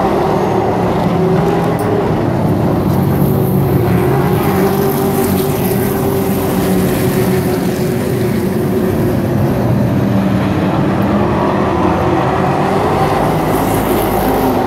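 A pack of short-track race trucks running together around an asphalt oval: many engines blending into one loud, steady sound whose pitch wavers gently.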